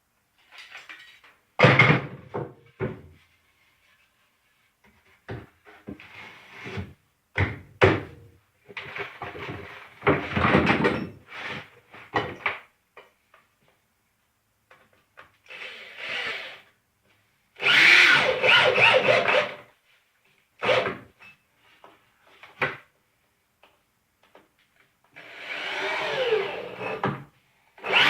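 A power tool runs in short bursts against wood, with knocks and rubs of boards being handled between them, while a wooden drawer carcass is put together. There are about half a dozen separate bursts, the loudest and longest about two-thirds of the way in and near the end.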